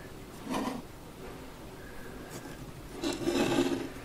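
A small unglazed Native American clay bowl scraping against the wooden desktop and rubbing in the hand as it is handled and lifted. There is a brief scrape about half a second in and a longer, louder rub about three seconds in.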